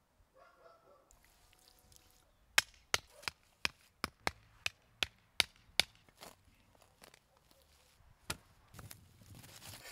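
Wooden stakes being driven into the ground: a run of about ten sharp wooden knocks, two to three a second, then a single shovel blade thud and a scrape into soil near the end.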